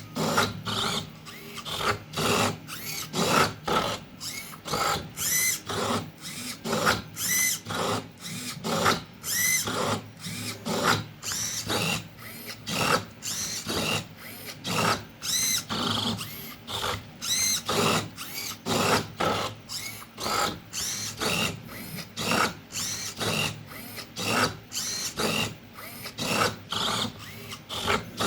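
Servo motors of a 3D-printed Rubik's cube solving robot whirring in quick short bursts, about two a second, with clacks as its grippers clamp and turn the plastic cube, working through a solve.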